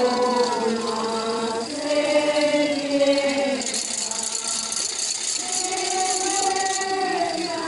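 A crowd singing a slow hymn in long held notes. A rattle shakes through the middle.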